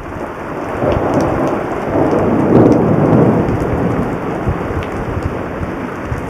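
Steady rain falling, with fine drop ticks, and a long roll of thunder that builds from about a second in and fades slowly.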